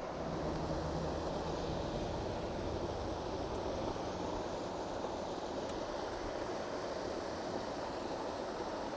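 Steady outdoor background noise of wind and water, with a faint low engine hum in the first few seconds.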